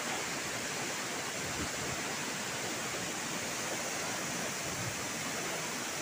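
Tall waterfall's steady, even rush of falling water.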